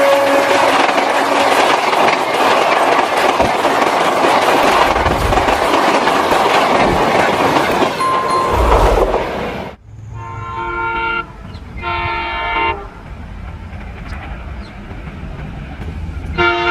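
Train passing at speed: a loud, steady rush of wheel and rail noise. After a sudden cut, a locomotive horn sounds two short blasts, each a chord of several steady tones, and a third blast starts near the end.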